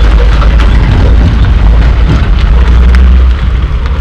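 Heavy, loud low rumble of a coal-hauling dump truck's diesel engine as the truck pulls away along the haul road, easing off a little about three seconds in.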